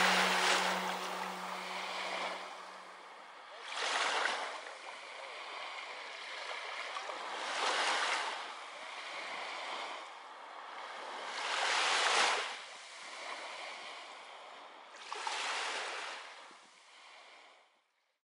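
Ocean surf: waves breaking and washing in about every four seconds, five swells in all, fading out just before the end. The last held chord of the music dies away over the first few seconds.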